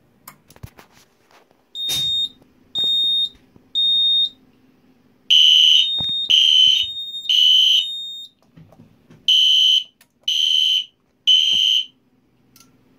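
A few clicks from the pull station, then the alarm sounding in the temporal-3 pattern: three high beeps, then the EST Genesis horn strobe joining in with loud blasts in two groups of three, with a pause between the groups.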